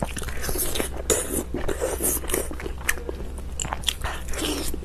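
A person biting and chewing food close to the microphone: many short, wet mouth clicks and smacks.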